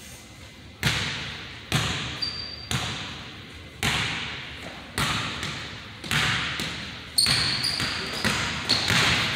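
Basketball dribbled on a hardwood gym floor, about one bounce a second, each bounce echoing through the hall. Short high sneaker squeaks come in between the bounces a few times.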